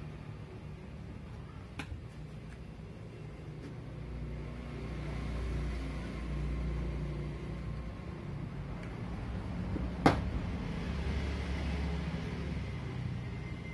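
Low steady rumble with two clicks of the plastic letter-side strip being handled and pressed into place: a faint one about two seconds in and a sharp, louder one about ten seconds in. A faint steady high tone comes in near the end.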